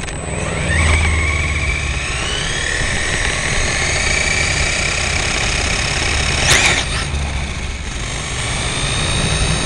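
Electric RC car's motor and gear drive whining, rising in pitch as it accelerates in the first couple of seconds, then holding a high, steady whine at speed over a low rumble of tyres on asphalt. A brief knock about six and a half seconds in.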